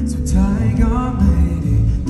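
Live concert music with heavy bass and a sung vocal line that comes in briefly, over the amplified band and the PA.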